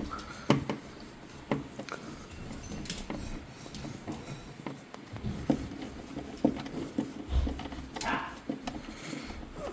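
Irregular clicks and knocks of hand tools and metal parts being handled while a furnace inducer motor is taken apart, with a short rustle near the end.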